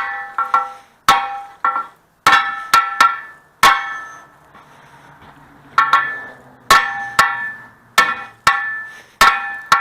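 Struck metal ringing: about fifteen sharp clangs at uneven spacing, each ringing on briefly with the same bell-like pitch.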